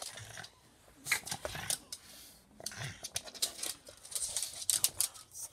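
Puppies scrambling on a wooden floor: quick, irregular clicks and scuffles of claws.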